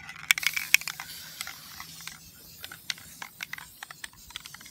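Irregular light clicks and taps, densest in the first second and a half, with a faint hiss under them.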